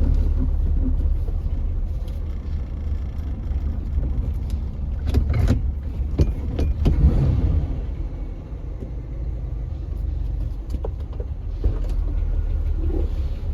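Chevrolet Caprice Classic running with a steady low engine rumble, with a few short clicks and knocks over it.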